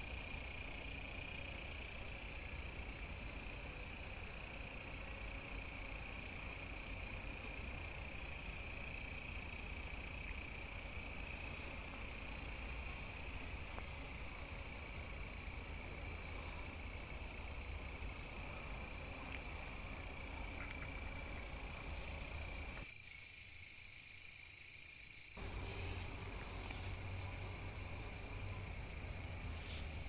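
Steady chorus of insects making a continuous high-pitched shrill. From about halfway there is a faint repeating tick, a little more often than once a second, over a low rumble that cuts out for a couple of seconds near the end.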